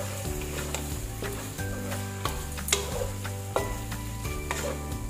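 Wooden spatula stirring and scraping chicken keema with yogurt in a granite-coated frying pan, knocking against the pan about once a second, while it fries. Steady background music plays underneath.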